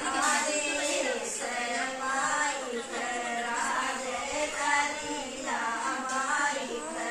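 Group of women singing a sohar, the traditional folk song of childbirth, together in long sung phrases without instruments.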